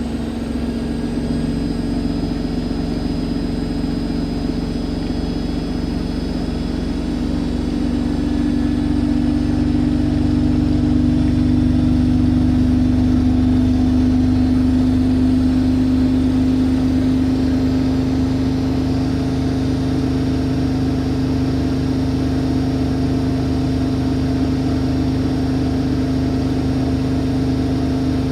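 Siemens Siwamat iQ 716 washing machine spinning at speed: a continuous motor hum that rises a little in pitch and loudness over the first ten seconds or so, then holds steady.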